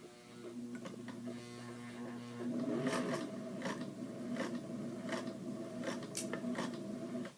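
Singer straight-stitch electric sewing machine running, stitching through thick coat fabric: a steady motor hum that gets louder about two and a half seconds in, with light clicks every half second or so, then stops abruptly.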